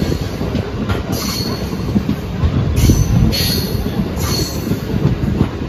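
Electric MEMU train rumbling along a station platform as it draws in, heard from the coach doorway, with short high wheel squeals about once a second.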